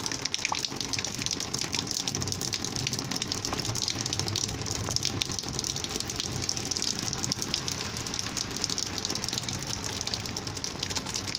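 Rainwater gushing and flowing steadily, with many small splashes of drops in it.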